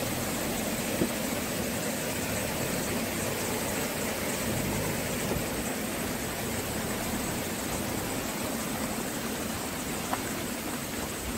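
A Maruti Gypsy 4x4's engine running as it drives through a stream crossing on an off-road track, under a steady rush of noise. Two light knocks, about a second in and near the end.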